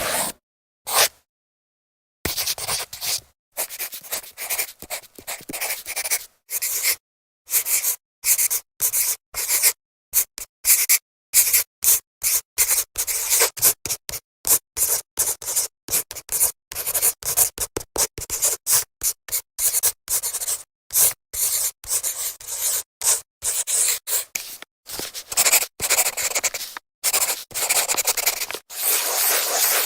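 Marker pen drawing on a whiteboard: many short scraping strokes, one after another, broken by abrupt dead-silent gaps.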